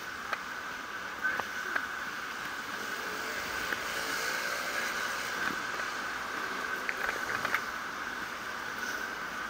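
Steady rolling and whining ride noise from something travelling low over paved sidewalk, with a constant narrow whine and a few scattered light clicks.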